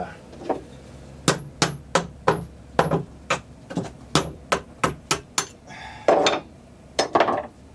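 Claw hammer striking a large screwdriver driven into a fiberglass engine hatch to pry out its wet balsa core: a quick run of about a dozen sharp blows, roughly three a second, some with a short metallic ring, followed by two longer scraping noises near the end.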